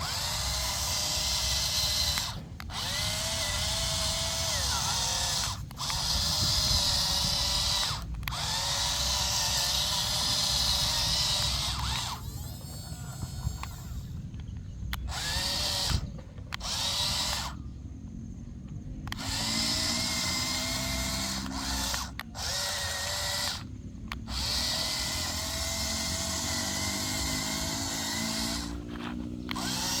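Small electric motors of a toy mini excavator whining as it works, breaking off and starting again many times. The pitch wavers, and a lower motor hum rises slowly under the whine in the second half.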